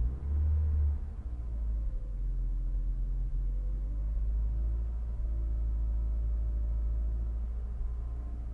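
Peugeot 306 GTI-6's four-cylinder engine running with a misfire and a low rumble. Its pitch falls over the first couple of seconds, then rises and holds steady.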